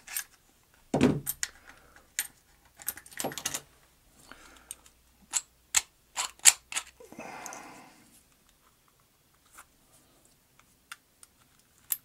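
A small padlock key and cutters being handled, freed from plastic packaging: scattered sharp metallic clicks and taps, a dull knock about a second in, and a short rustle of plastic about seven seconds in.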